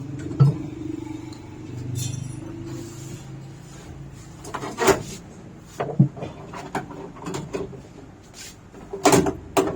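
Knocks and clatter of washing-machine parts being handled as the tub assembly is pulled out: a sharp knock about half a second in, more around the middle, and a cluster of louder clanks near the end.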